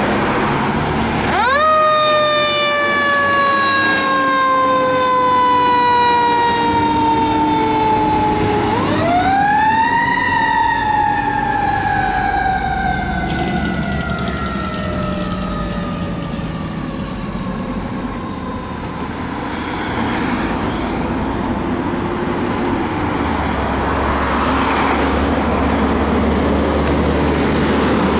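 Fire truck siren winding up sharply and then slowly winding down, twice in a row, the signal of a tower ladder truck responding Code 3. The truck's engine and traffic run underneath.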